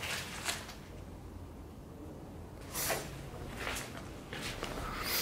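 A few footsteps crunching and scuffing on a gritty, debris-strewn concrete floor, the loudest step about three seconds in.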